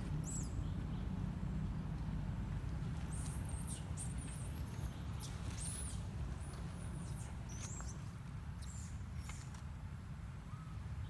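Short, high-pitched squeaks and chirps, scattered through, over a steady low rumble.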